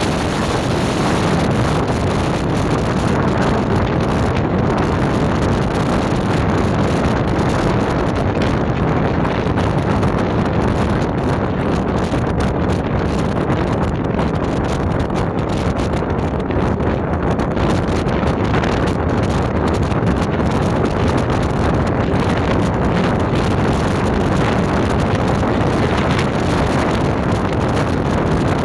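Steady loud rushing noise of wind buffeting the microphone, with no distinct bangs.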